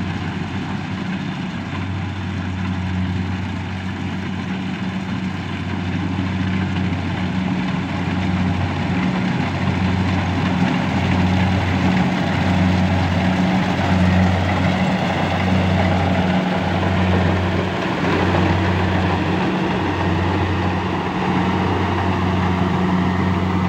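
Kubota DC68G Harvest King combine harvester running as it cuts ripe rice. It gets louder as it comes close, and a steady low hum dips about once a second.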